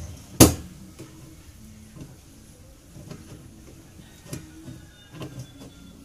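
One loud sharp click about half a second in, then scattered lighter knocks and clicks, from hands working on the spin-dryer section of a twin-tub washing machine. A faint low hum runs underneath.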